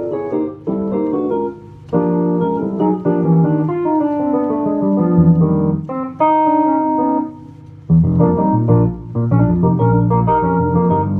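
Keyboard playing chords, with strong low bass notes coming in about eight seconds in.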